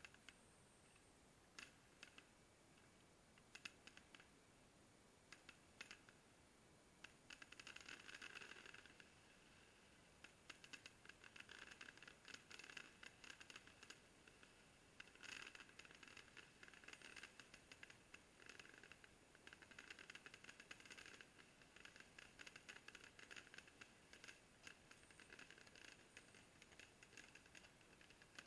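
Faint, distant fireworks crackling in irregular clusters of sharp clicks, thickest about eight seconds in and again from about eleven to twenty-one seconds.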